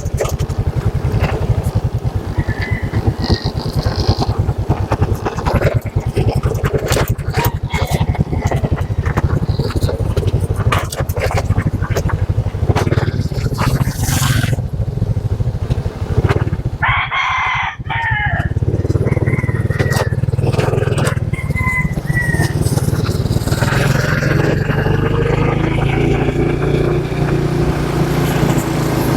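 Motorcycle engine running while riding, with wind and road noise on the microphone. About halfway through, the engine sound briefly drops away while a short pitched sound is heard, then it settles back into a steady drone.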